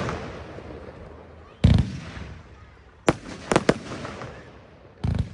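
Röder 'Regenbogen' firework battery (cake) firing shots that burst overhead into coloured stars. A deep bang comes about a second and a half in, then a sharp crack at about three seconds followed quickly by two more, and another deep bang near the end, with a fading hiss between the reports.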